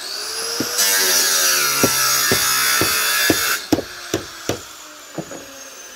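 Electric angle grinder spinning up and cutting for about three seconds, then winding down with a slowly falling whine. Sharp knocks sound about twice a second throughout.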